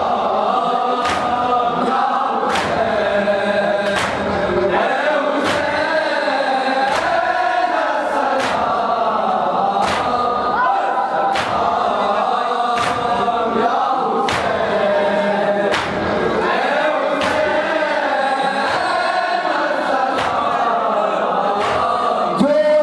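Group of men chanting a noha (Shia mourning lament for Hussain) together, with a sharp beat of chest-beating (matam) about every one and a half seconds keeping time.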